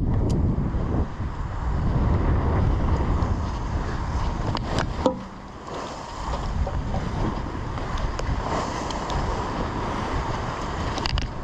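Wind buffeting the microphone and sea rushing past a sailing yacht's hull, with a single sharp knock about five seconds in.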